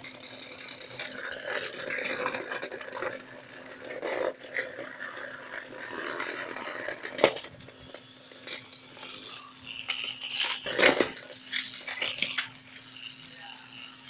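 Plastic toy trains and track being knocked about and toppled, clattering and rattling, with sharp knocks about seven and eleven seconds in. A steady low hum runs underneath.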